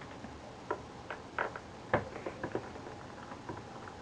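Small irregular clicks and taps of a screwdriver working at a screw in a plastic camera casing, the sharpest about two seconds in.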